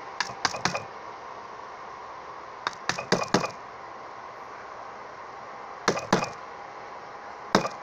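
A small hammer tapping pins back into an Umarex T4E Walther PPQ air pistol during reassembly. There are about ten sharp, light taps in short clusters.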